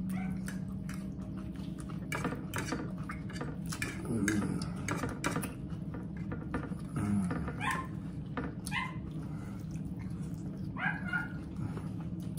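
Close-miked eating at the table: chewing and crunching salad with raw onion, with lip smacks and clicks of cutlery. A few short high squeaks come near the end.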